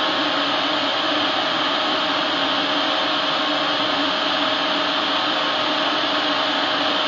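Epilog Mini 24 35 W CO2 laser cutter running as it cuts 3 mm wood: a steady airy rush with a low hum.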